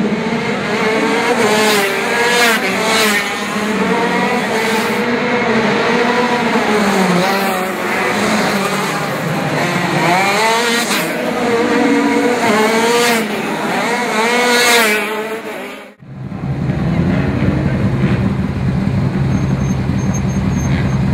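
KZ2 shifter karts' 125 cc two-stroke engines racing past, their high-pitched engine note rising and falling as they rev, with several close pass-bys. After about sixteen seconds the sound cuts off suddenly to a steady low engine idle.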